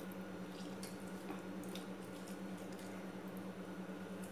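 Lemon halves squeezed by hand over a steel mesh strainer: faint drips and squishes of juice, a few soft ticks, over a steady low hum.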